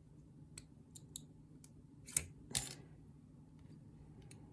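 Small sharp clicks and taps as lock pins and tools are handled while a pin-tumbler lock is taken apart, about seven in all, the two loudest near the middle.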